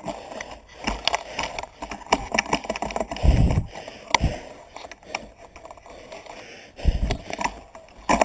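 Knocks and clicks of a mountain bike's loose front wheel being handled and rocked in the fork, the sign of a front wheel that has worked loose and has play. Two heavier thumps come about three and seven seconds in.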